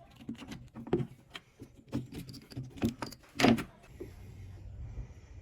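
Irregular clicks and knocks of hard tool parts being handled, the loudest about three and a half seconds in.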